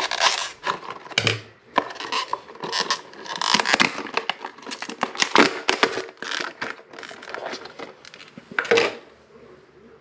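Stiff clear plastic clamshell packaging being pried and torn open with a screwdriver: a run of irregular crackles, crinkles and scrapes that stops about nine seconds in.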